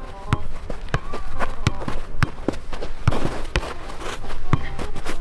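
A football being kicked and headed back and forth in the air: a quick series of sharp knocks on the ball, several a second, with footsteps and scuffs on artificial turf.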